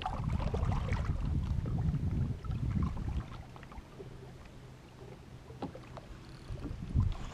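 Low rumbling wind and water noise aboard a small boat on open water, with scattered small clicks and knocks. It is louder for the first few seconds, drops off through the middle and picks up again near the end.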